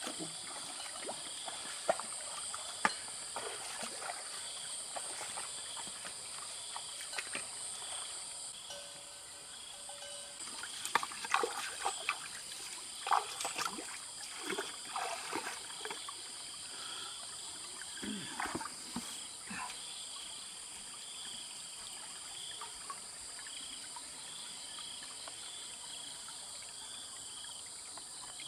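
Insects chirping steadily in a high, even chorus, with a regular repeated chirp, over the trickle of a small shallow stream. Scattered short splashes and clicks come in a cluster around the middle.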